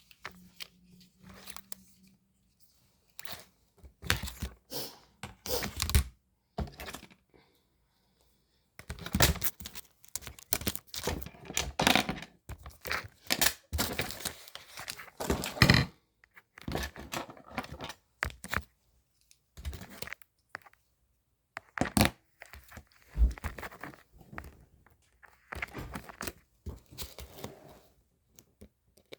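Close-up handling noises: irregular rustling and scraping bursts mixed with sharp clicks and knocks, busiest in the middle, with one sharp click near the end.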